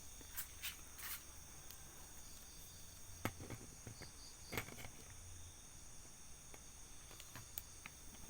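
Steady high-pitched chorus of night insects such as crickets, with a few short clicks and rustles, the loudest about three and four and a half seconds in.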